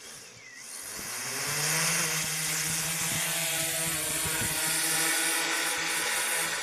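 DJI Inspire 1 quadcopter's motors and propellers spinning up for an automatic takeoff. The pitch and loudness rise over the first two seconds as it lifts off, then settle into a steady buzzing hum as it hovers.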